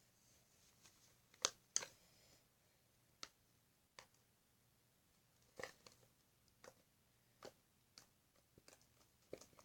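Fluffy slime being squeezed and pulled by hand, giving scattered sharp sticky clicks and pops, the loudest two close together about one and a half seconds in.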